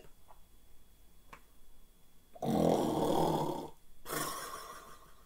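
A man imitating snoring: one loud, rough snore starting about two and a half seconds in and lasting just over a second, followed by a softer, breathy out-breath.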